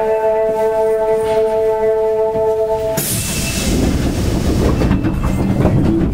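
Held tones of a platform chime end abruptly about three seconds in, giving way to a rush of air and the rumbling of a subway train.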